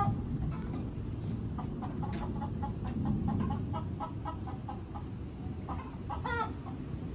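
Chickens clucking in runs of short, quickly repeated notes, with a few brief high chirps over a low, steady background hiss.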